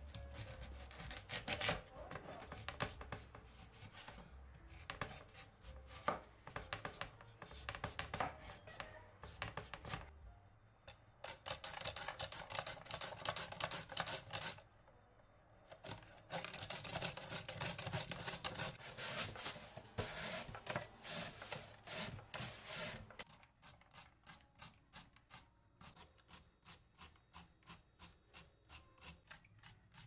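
Kohlrabi being cut with a kitchen knife on a wooden board and rubbed across a julienne grater in quick rasping strokes, with a short pause about halfway. In the last few seconds, vegetable strokes across a julienne slicer come evenly, about two a second.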